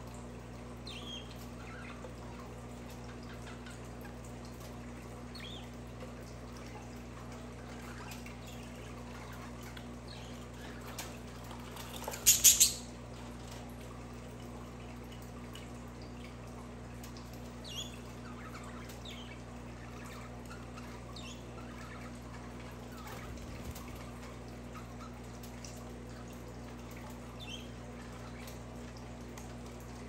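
Budgerigars chirping now and then, short high calls scattered through, with one loud burst of three calls about twelve seconds in. A steady low hum runs underneath.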